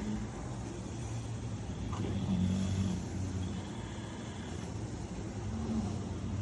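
Sleeping pig snoring: a low, rough snore with each slow breath, swelling about two seconds in and again near the end.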